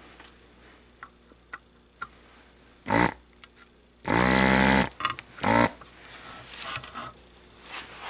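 Hakko desoldering gun's vacuum pump switching on in three short bursts, the longest nearly a second, sucking molten solder off the pins of a circuit board, with a few light ticks before them.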